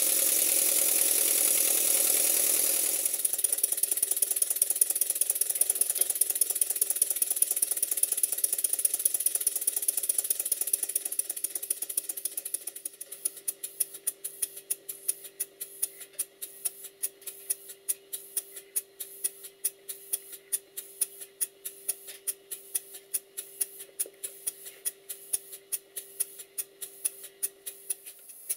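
Stuart Twin Victoria twin-cylinder model mill engine running on compressed air, with a fast, even beat of exhaust puffs. A loud hiss of air covers the first few seconds, and the beats grow quieter from about the middle on.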